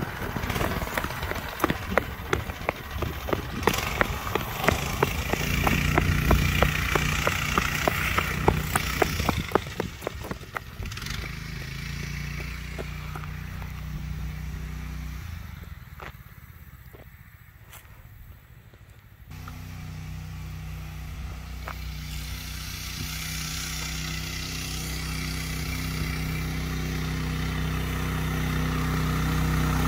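Go-kart engine running under way on a test ride, with a dense crackle of tyres on gravel for the first ten seconds or so. The engine fades into the distance and dips low just past halfway. It then grows steadily louder as the kart comes back across the grass toward the microphone.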